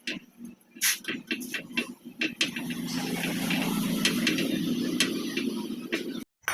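A run of sharp metal clicks and knocks, then a workshop machine's motor running steadily with scattered light ticks, cut off suddenly near the end.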